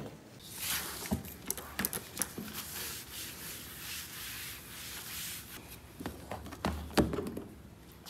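A paper towel wiped across a laminate desktop, a swishing rub for several seconds, with a few light clicks and knocks mixed in and a couple of knocks near the end.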